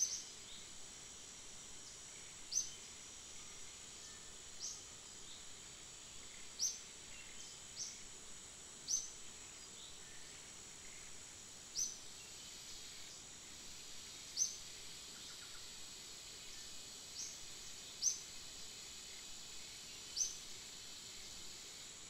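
Steady high insect drone, with a bird's short, sharp high call repeated about ten times at uneven gaps of two to three seconds.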